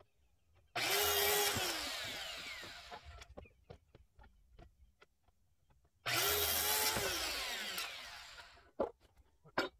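Handheld circular saw cutting a board twice, each cut a short burst of the saw followed by the motor winding down, falling in pitch as it coasts to a stop. Light knocks and clicks between the two cuts.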